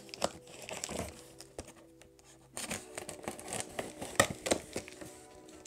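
A knife slicing through packing tape on a cardboard box, with tape tearing and cardboard crinkling. It gets louder about halfway through, with a few sharp clicks.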